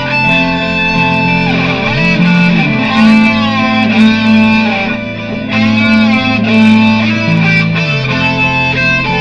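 Electric guitar improvisation over a looped guitar backing: sustained, overlapping notes, with a lead line sliding up and down in pitch about two seconds in and again around six seconds.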